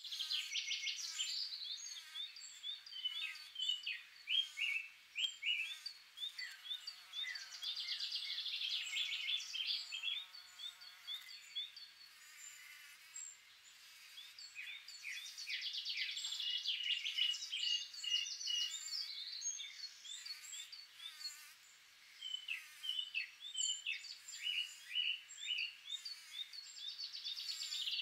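Several small birds singing at once, a busy mix of quick chirps, downward-sweeping notes and trills. An insect's low buzz joins in for a few seconds, about a quarter of the way through.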